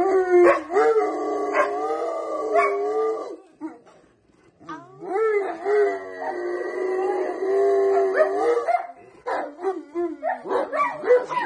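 Rottweiler howling: two long, wavering howls of about three and a half seconds each with a short pause between, then shorter broken howls near the end.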